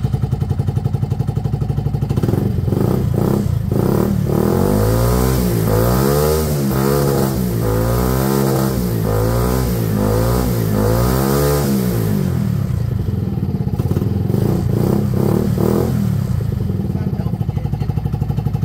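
Benelli Velvet scooter's single-cylinder four-stroke engine running on its original ignition coil, just after starting. It idles, is blipped up and down in a quick series of throttle revs from about four seconds in, and settles back to a steady idle near the end.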